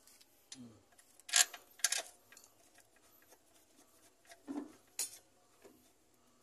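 A few sharp metallic clinks and taps of hand tools and parts being handled, the loudest a pair about a second and a half and two seconds in, and another near the end, with a couple of softer knocks between.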